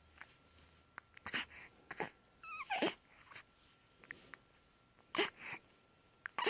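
A dog breathing heavily in a series of short, breathy puffs, with one brief high squeak that falls in pitch about two and a half seconds in.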